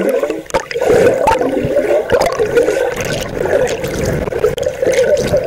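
Pool water churning and splashing continuously as a person doggy paddles, heard close up and muffled through a camera in a waterproof case.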